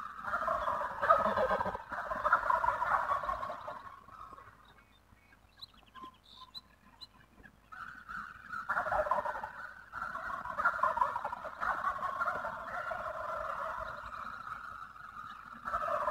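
Wild turkeys gobbling: a run of rattling gobbles in two stretches, broken by a pause of about three seconds.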